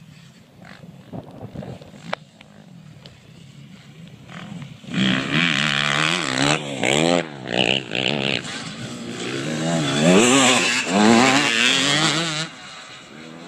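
Dirt bike engine revving loudly close by, its pitch rising and falling with the throttle. It starts suddenly about five seconds in and drops away near the end, with only faint wind noise before it.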